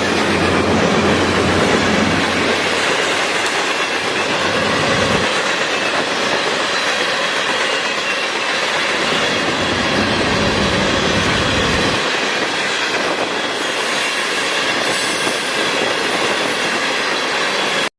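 Freight train rolling past: steel wheels clattering over rail joints, with thin wheel squeal over the rumble of the railcars. The sound cuts off suddenly near the end.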